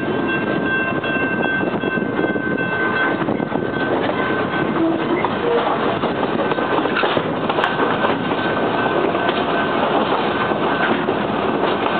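Train running on the track: a steady, continuous rumble and rattle of the wheels and cars.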